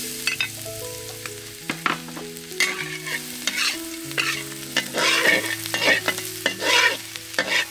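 Minced garlic and spring onion sizzling in hot oil in a steel wok, while a metal wok spatula stirs and scrapes against the pan several times.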